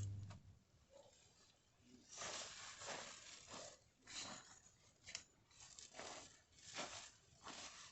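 Tent fabric rustling and scraping in a series of irregular bursts as it is handled during setup, with a low thump right at the start.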